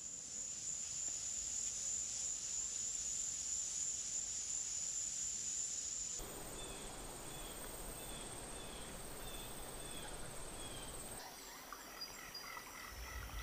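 Forest ambience: a steady high insect drone. From about six seconds in it gives way to a repeating chirping call over a thin high whine, and near the end other high calls come in.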